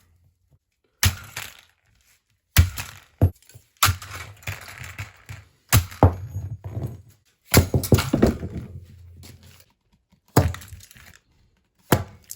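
Hammer blows smashing a cheap, brittle plastic fan: about eight sharp strikes a second or two apart, each followed by plastic cracking and pieces rattling.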